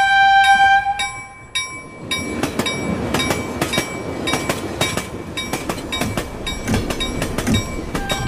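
Train horn held on one steady note, cutting off about a second in, followed by the noise of a running train with a long run of sharp clicks.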